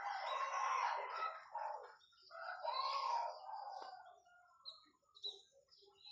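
A rooster crowing, with a second, shorter call about three seconds in, then a few brief high bird chirps near the end.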